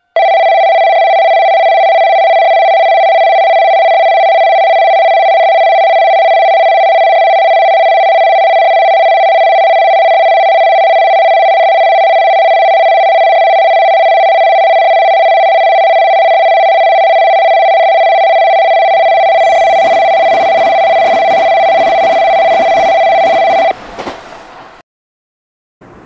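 Nishitetsu platform passing bell, an electronic bell ringing steadily on one high tone to warn of a train that will pass through without stopping. About twenty seconds in, the rushing noise of a train passing through joins, and the bell cuts off shortly before the end.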